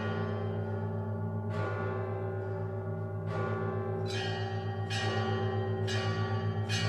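Russian Orthodox church bells ringing for the All-Night Vigil: about six separate strikes, coming closer together toward about one a second, each ringing on over the steady, pulsing hum of a large bell.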